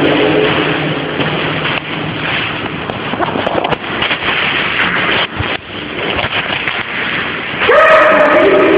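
Steady rushing noise with a few faint clicks, dipping briefly about five seconds in; near the end a voice starts singing.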